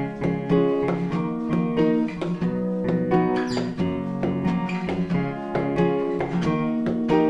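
Instrumental break of a song: acoustic guitar playing a steady picked and strummed accompaniment, no singing.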